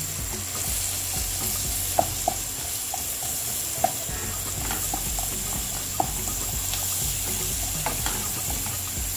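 Sliced onions sizzling steadily in hot oil and butter in a saucepan, as a wooden spoon stirs them and now and then knocks against the pan.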